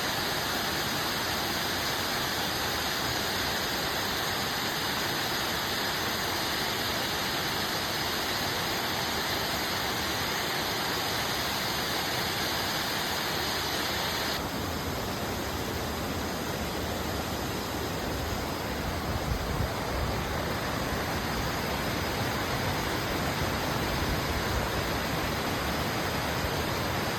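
Waterfall: a steady, continuous rush of falling water. About halfway through the sound shifts suddenly to a duller, deeper rush with less hiss.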